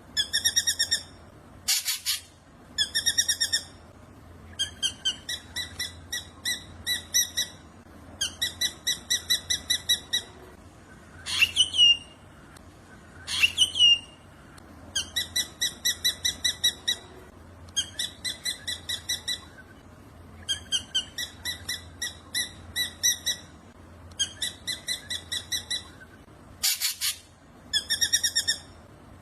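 Black drongo singing: repeated runs of rapid, evenly spaced chirping notes, broken by two sharp upward-sweeping calls in the middle, which are the loudest, and harsh rasping notes near the start and near the end.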